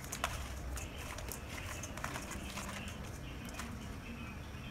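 Small fish being turned and rubbed by hand in a stainless steel bowl: irregular light clicks and wet taps against the metal, over a low steady rumble.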